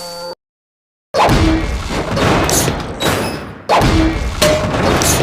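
Cartoon sound effects: after a short gap of silence, a loud crashing impact about a second in, then two more sudden impacts close together near the end, each dying away with a rattling tail.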